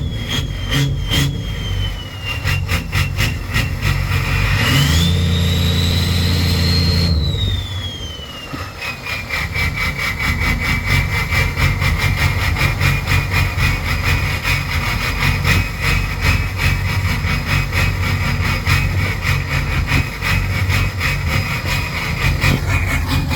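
Ford 6.0 Power Stroke turbo-diesel V8 running with a rough idle and a high turbo whine. About five seconds in it is revved for two seconds, the whine climbing. The whine then falls away as the engine drops back to a steady, uneven idle.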